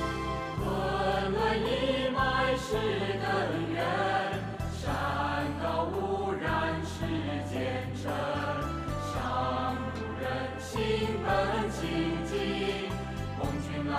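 Music with a choir singing over long held bass notes that change every second or two.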